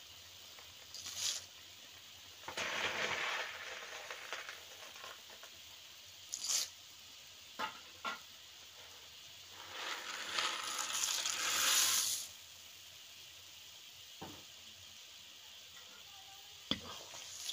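Dry pasta shells poured in several bursts into a kazan of simmering zirvak broth, the longest and loudest pour about two-thirds of the way through, with a few light clicks. A faint steady sizzle runs underneath.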